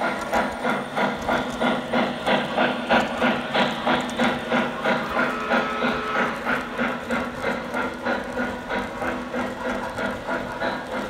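O scale model Norfolk & Western J-class 611 steam locomotive running with its sound system chuffing steadily, about three chuffs a second, over the rolling noise of the locomotive and freight cars on the track. The chuffing fades a little as the engine moves away.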